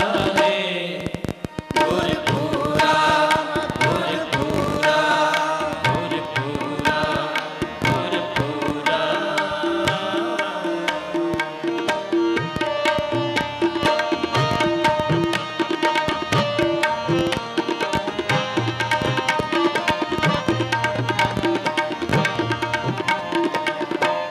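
Sikh kirtan music: harmoniums holding sustained chords under rapid tabla strokes.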